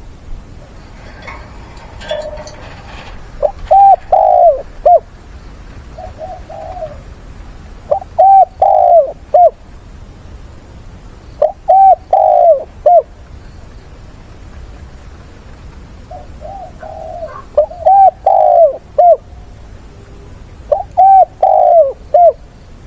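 Spotted dove cooing: about six short phrases of three or four coos each, one every three to five seconds, one of them softer than the rest.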